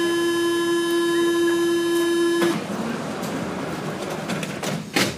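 Métro door-closing warning buzzer: one steady buzzing tone that stops abruptly about two and a half seconds in. The doors then slide shut with a sharp knock near the end.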